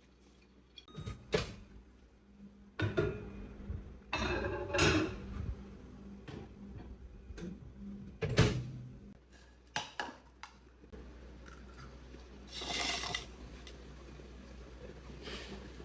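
Kitchen clatter from dishes and utensils being handled: several sharp knocks, with a couple of longer scraping or rustling stretches in between.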